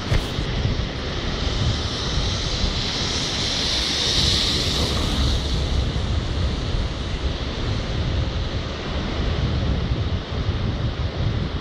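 Storm wind buffeting the microphone over heavy surf washing across a rocky shore, a steady rushing roar with a louder hissing swell about four seconds in.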